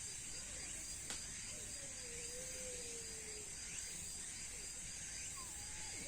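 A cat mewing softly twice: one long wavering mew, then a shorter falling one near the end. A steady high-pitched hiss runs beneath them.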